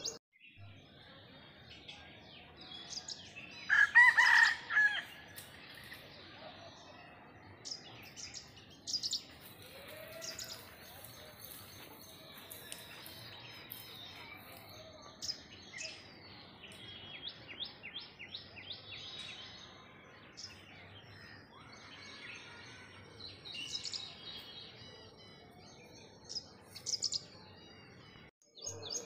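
A rooster crows once, loud, about four seconds in, while small birds chirp on and off throughout.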